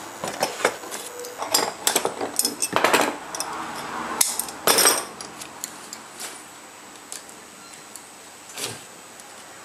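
Small metal shears cutting thin metal strip for a batik stamp: a quick run of sharp snips and clicks, then a few single clicks near the end.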